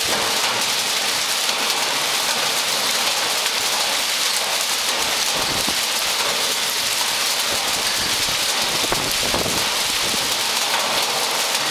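Heavy rain mixed with hail pelting a concrete yard and roofs, a dense, steady hiss.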